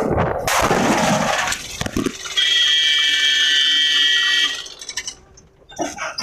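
A scooter crashing into a tipper truck: wind and road noise while riding, a sharp impact about two seconds in, then a loud, steady, high-pitched screech for about two seconds that dies away, followed by a few faint knocks.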